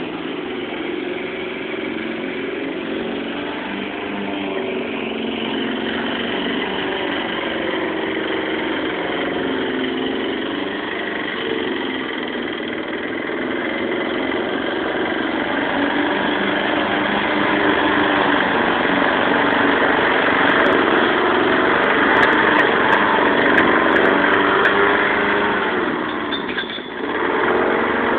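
Lawn mower engine running steadily, growing louder past the middle, with a brief dip near the end before it picks back up.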